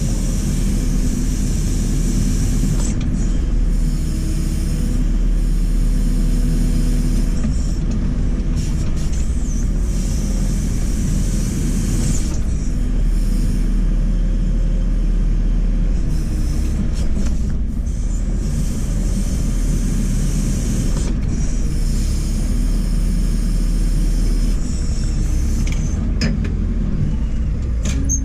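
JCB 4CX backhoe loader's diesel engine running steadily under load as the machine works, a low rumble with a hiss that comes and goes.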